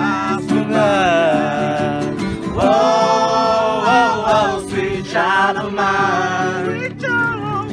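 Acoustic guitar strummed in steady chords, accompanying live singing.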